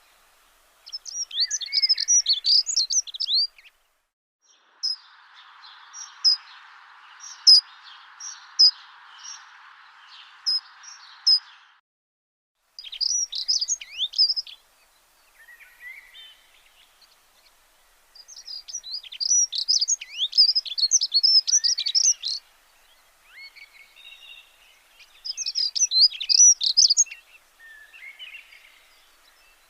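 Small songbirds chirping and twittering in bouts of rapid high notes a few seconds long, with short pauses between. A soft hiss runs under the chirps for several seconds near the start.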